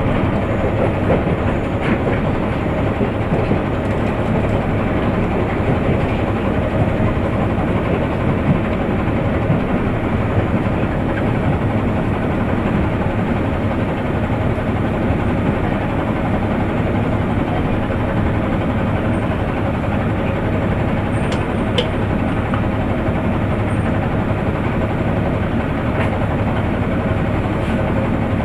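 Cabin running noise of a KiHa 100 series diesel railcar: a steady engine hum with wheels on the rails as the train slows into a station, settling to the diesel idling once it stands.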